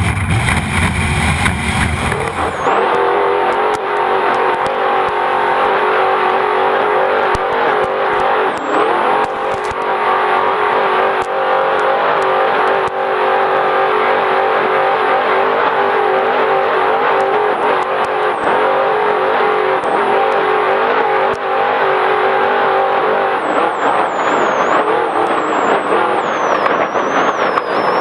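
Trophy Truck's race engine running hard at speed, holding a steady pitch for most of the stretch, then rising and falling near the end. Frequent sharp knocks and ticks sound over it.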